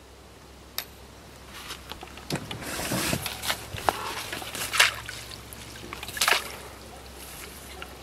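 A hooked fish splashing at the water's surface as it is drawn in on a line. The irregular splashes start about two seconds in, and the loudest come about five and six seconds in.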